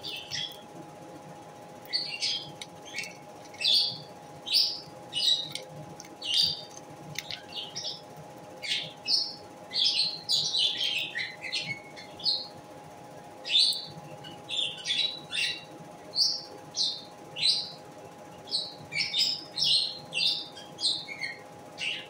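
Lovebird chirping: short, sharp, high calls, one to three a second, in runs with brief pauses.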